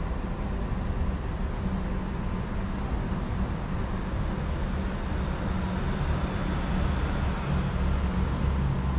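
Singapore MRT train running: a steady rumble and hiss with a few faint steady tones above it.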